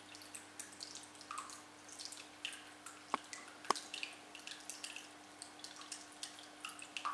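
Water dripping in quick, irregular small drops over a faint steady hum, with two sharper clicks a little after three seconds in.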